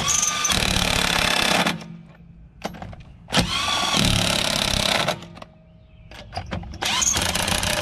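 Cordless impact wrench running lug nuts onto a car wheel in three bursts of under two seconds each, the last starting near the end. The owner takes the way the lugs are going on as a sign that they need oiling.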